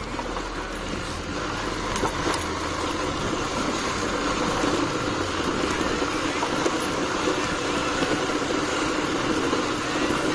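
Motor vehicle running along a potholed street: steady engine and road noise, with a couple of faint knocks about two seconds in.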